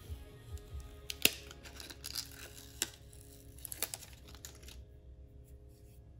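Clear plastic transfer tape crinkling and crackling as it is peeled off a vinyl lighter wrap and handled, with a few sharp crackles, the loudest about a second in.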